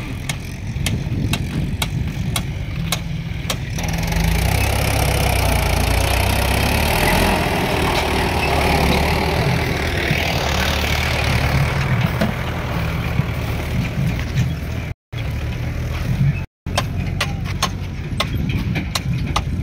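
Swaraj tractor's diesel engine running, louder for several seconds in the middle of the stretch, with scattered sharp ticks near the start and end. The sound cuts out completely twice, briefly, a few seconds from the end.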